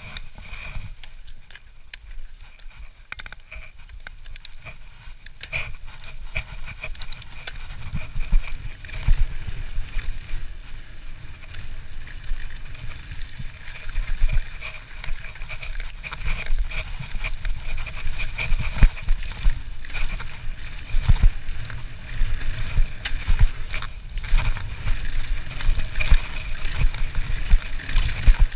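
Trek Slash mountain bike riding down a dirt forest trail: tyre noise and the bike rattling and knocking over bumps, with a low rumble. It gets louder and busier from about eight seconds in as speed builds.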